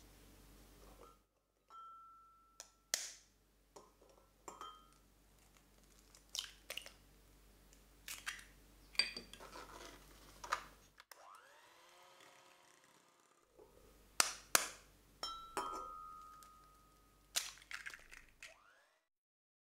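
Eggs being cracked one at a time into a glass mixing bowl. Each egg is knocked with a sharp tap and a short ringing note, followed by several smaller cracks, clicks and clinks as the shell breaks apart and is set down. It happens twice, once early and once about two-thirds of the way in.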